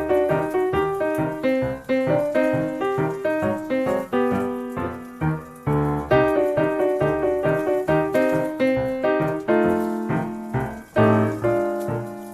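Background music: solo piano playing a steady run of notes.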